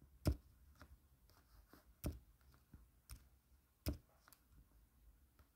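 Stylus tip tapping on a tablet's glass screen: a few sharp, separate clicks a second or two apart as tools and a colour are picked.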